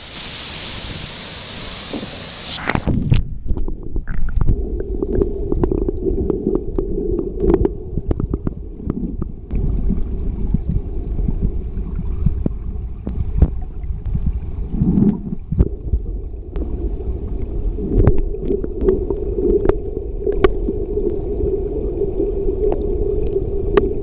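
A waterfall rushing for the first two and a half seconds. The sound then turns suddenly to the muffled low rumble of water heard through a submerged camera, with scattered clicks and knocks.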